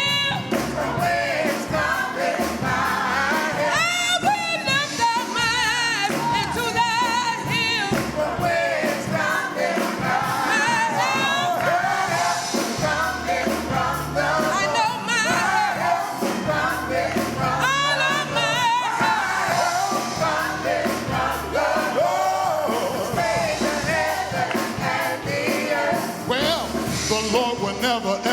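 Gospel music: singing over band accompaniment, with long wavering vocal lines.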